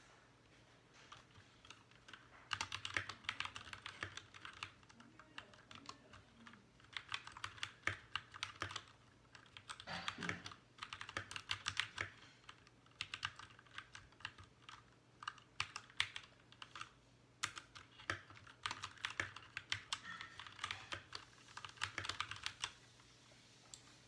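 Fast typing on a Royal Kludge RK61 mechanical keyboard: runs of quick keystrokes with short pauses between them, starting a couple of seconds in and stopping shortly before the end.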